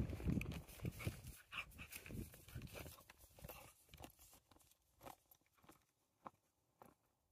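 A dog moving about close to the microphone, then scattered rustles and soft steps in grass that grow fainter as the hiker and dog walk away.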